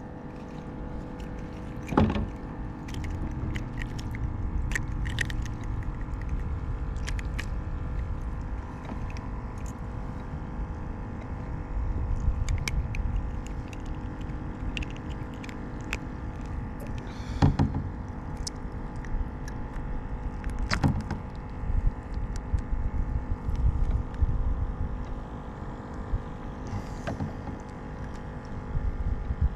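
Low, uneven wind rumble on the microphone with scattered sharp clicks and knocks of gear being handled in a kayak, the loudest about two seconds in and twice in the second half, over a faint steady hum.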